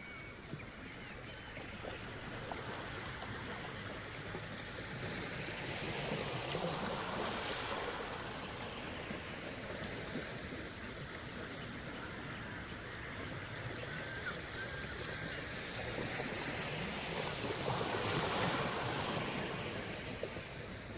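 Sea surf washing up the shore, a steady rush that swells twice, about eleven seconds apart, as waves break.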